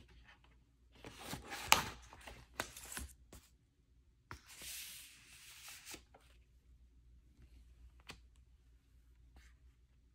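Pages of an LP-sized paper booklet and insert being turned and handled: bursts of paper rustling with a sharp snap about a second and a half in, a longer sliding rustle from about four to six seconds, then only small scattered touches of paper.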